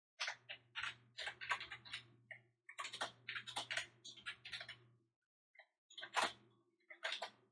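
Typing on a computer keyboard: two quick runs of key clicks, then a few slower, separate keystrokes near the end.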